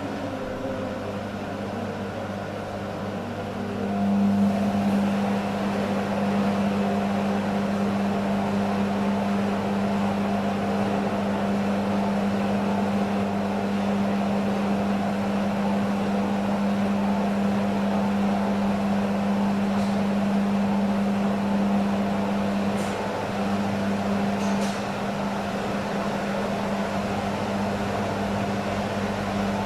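Beko washing machine's drain pump humming steadily, pumping out sudsy water, a state the machine falls into when excess suds trigger a suds lock. The hum grows louder about four seconds in.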